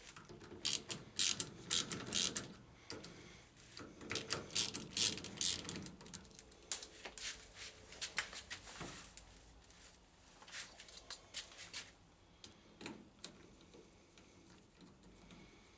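Screwdriver clicking in short spells as T15 Torx screws are backed out of the cap on a vending machine's rotor assembly, with small metal rattles between.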